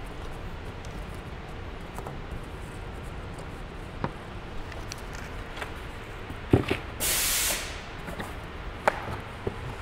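A small machined aluminium part handled and set down on a cloth-covered table: a few faint taps and knocks over a steady background hiss, with a short sharp hiss lasting about half a second just after seven seconds.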